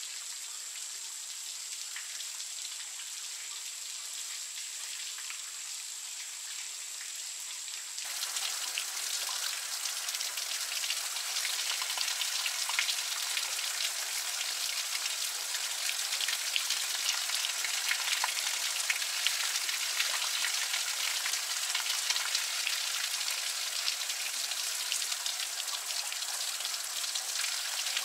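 Shower water pouring from an overhead bamboo pipe and splashing down over a person and the ground below, a steady spattering. About eight seconds in it becomes louder and closer.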